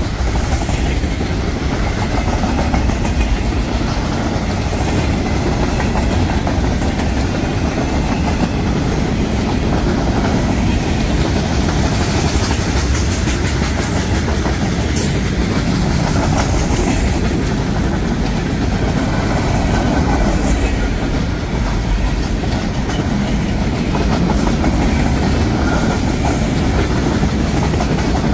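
A train rolling past close by: steady heavy rumble, with the cars' wheels clicking over the rails.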